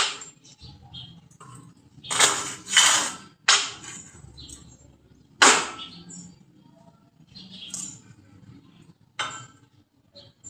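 A handful of sharp knocks or taps at irregular intervals, the loudest a pair about two to three seconds in and one about five and a half seconds in.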